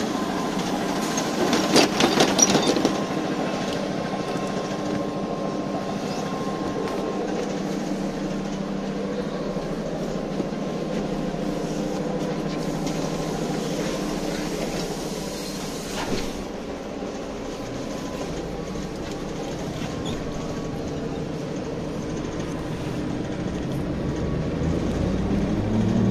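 BTZ-5201 trolleybus with a steady electric hum of several tones over cabin noise, a burst of clattering about two seconds in and a single knock about sixteen seconds in. Near the end a whine rises in pitch as the trolleybus gathers speed.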